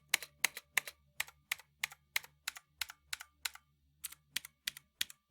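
Typing on an UHURU UMK-100 60% mechanical keyboard with clicky blue switches: a steady run of sharp key clicks, about three to four a second, with a short pause a little past halfway.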